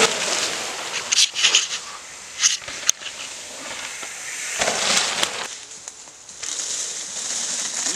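Dry fallen leaves and dirt crackling and rustling under a downhill mountain bike's tyres, with scattered sharp clicks and rattles from the bike.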